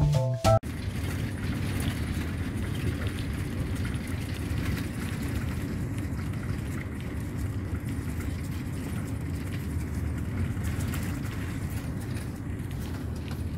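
Piano music cuts off within the first second. Then the steady low rumble of a moving vehicle, road and engine noise heard from inside it, runs on evenly.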